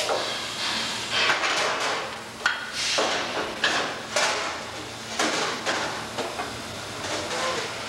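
Irregular metal clanks and knocks, several ringing briefly, as a bent steel truck fender section on its lifting chains is handled against a rotary compression bending machine, over a steady machine-shop hum.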